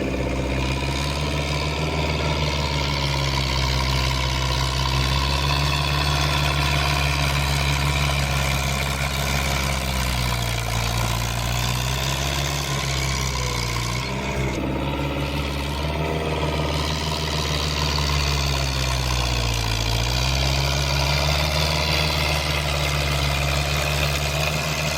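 Fiat 780 tractor's diesel engine running steadily under load while pulling a subsoiler, its note dipping briefly twice, about ten and twenty seconds in, as the engine lugs.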